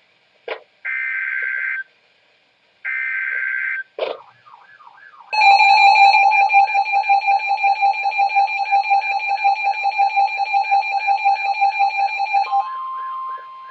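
Emergency Alert System tones: two one-second bursts of SAME header data screech, each followed by a click, then the EAS attention signal starting about five seconds in and pulsing steadily for about seven seconds. Near the end, a steady single tone near 1 kHz takes over.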